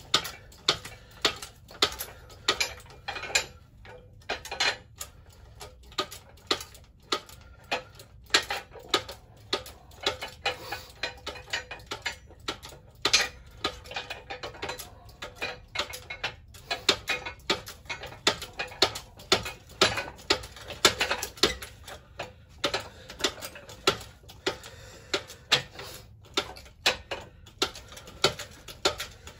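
Repeated sharp metallic clicks and knocks, two or three a second at times, as a steel coil spring is handled and seated in the cups of a hydraulic coil spring compressor.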